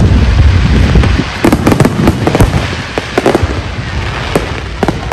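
Aerial fireworks shells bursting in a rapid barrage: dense booming for the first second or so, then scattered sharp bangs and cracks.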